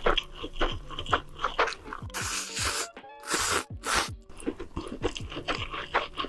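Close-miked crunching and chewing of crisp food, with a couple of longer, louder crunchy bites in the middle, over background music.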